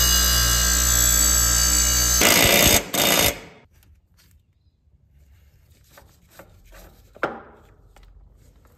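Bench grinder running with a steady whine and hum as a mower blade is ground against the wheel, then a louder, harsher grinding for about a second before it cuts off. After that come faint clicks and one sharper knock near the end as an oil filter is worked off with filter pliers.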